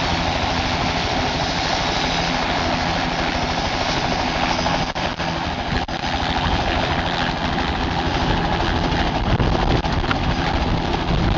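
Helicopter running: steady loud engine and rotor noise with a rapid low beating, dipping briefly twice about five and six seconds in.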